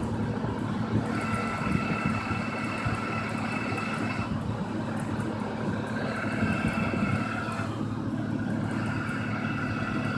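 1997 Acura Integra LS engine running with a high whine from its failing AC compressor. The whine cuts in and out every few seconds over the steady hum of the engine.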